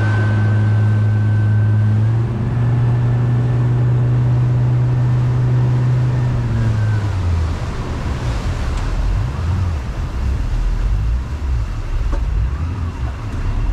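Boat's outboard motor running under way: a steady hum that steps up slightly in pitch about two seconds in, then falls away about seven seconds in, leaving a rough low rumble.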